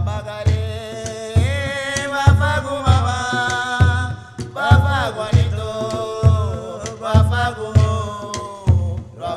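Background music: a song with a singing voice over a steady drum beat about two beats a second.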